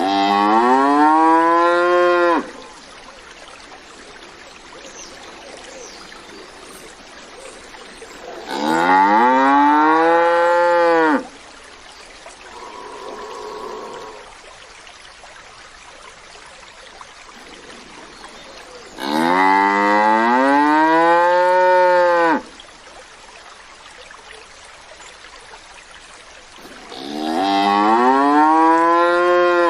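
Cow mooing: four long, loud moos several seconds apart, each about three seconds long, the pitch rising and then falling. A fainter, shorter call comes between the second and third.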